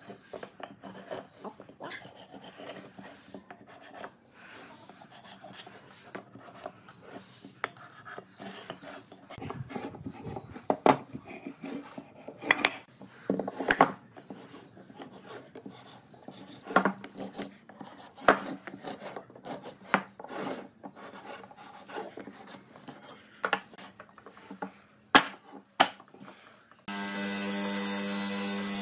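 A marking gauge scratching lines across pine blocks in short strokes, with occasional sharp knocks as the blocks are handled. Near the end a hollow-chisel mortiser's motor starts abruptly and runs steadily.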